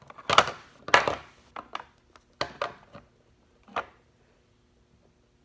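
Small plastic doll accessories being handled and set down on a glass tabletop: a run of sharp clicks and taps over the first four seconds, loudest about half a second and a second in.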